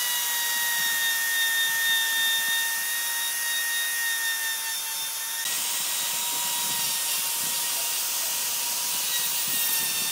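Electric plunge router running at full speed, a steady high whine, with the hiss of the bit cutting a groove along a wooden board.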